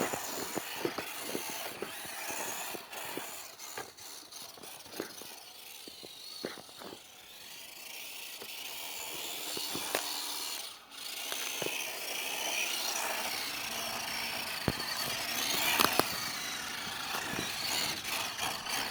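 WPL D12 RC drift truck driving, its small electric motor whining up and down in pitch as it speeds up and slows, with scattered sharp clicks.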